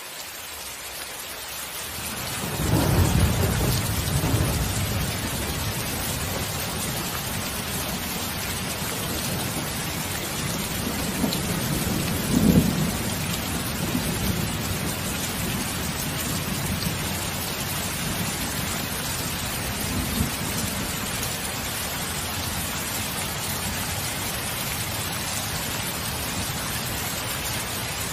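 Thunderstorm: steady rain, fading in over the first couple of seconds, with rolls of thunder. A long rumble comes about 3 seconds in, a sharper clap and rumble near the middle, and a fainter one about two-thirds of the way through.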